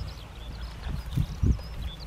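Shiba dogs chewing and tearing at common vetch plants, a few soft irregular crunches, with small birds chirping in the background.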